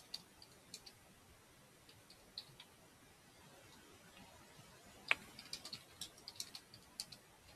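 Computer keyboard keystrokes clicking as commands are typed: a few scattered keys at first, then a quicker run of keystrokes in the last few seconds, the sharpest about five seconds in.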